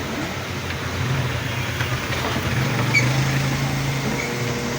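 Microwave oven running with a steady low hum, getting slightly louder about a second in, during a test run with a wet rag inside to check whether the repaired oven now heats.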